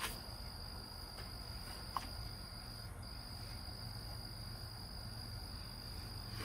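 Crickets trilling steadily as one continuous high tone, over a low hum, with a faint click about two seconds in.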